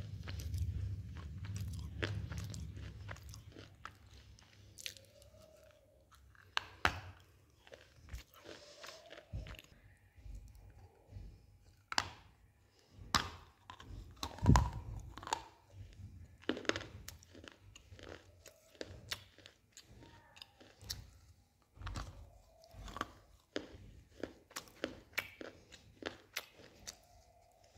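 Black shale stone being bitten and chewed: a run of sharp crunches, with one loud snapping bite about halfway through.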